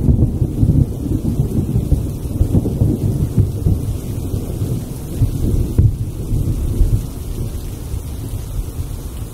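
Wind buffeting the action camera's microphone on a moving motorcycle: a loud, gusting low rumble that eases a little toward the end.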